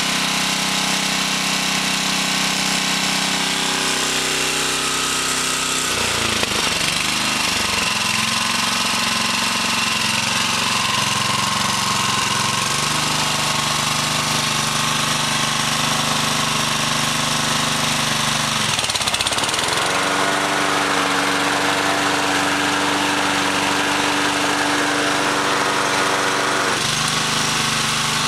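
Honda HR215 lawn mower engine running steadily. Its speed dips briefly twice, about six seconds in and again near nineteen seconds, and settles each time at a slightly different pitch.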